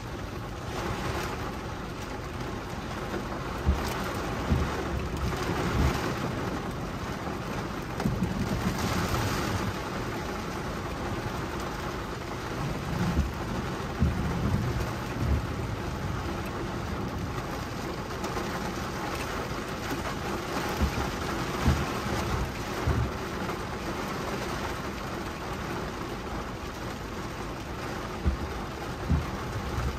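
Heavy thunderstorm rain drumming on a car's roof and windshield, heard from inside the cabin, with brief low thumps every few seconds.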